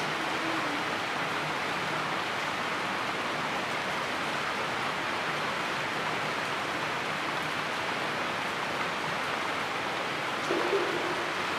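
Steady rain falling on tree foliage, an even, unbroken hiss. Near the end comes a brief, faint low sound.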